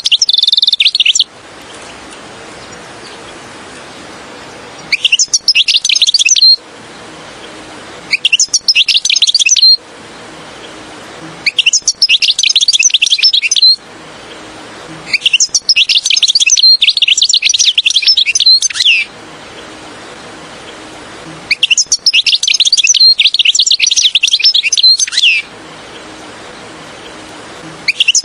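European goldfinch singing: rapid, high twittering and trilling phrases, each one and a half to four seconds long, with pauses of a few seconds between them.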